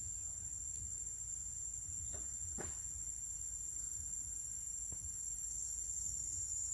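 Steady, high-pitched insect chorus, one shrill tone with fainter higher ones above it, over a low rumble; a few faint taps about two and a half and five seconds in.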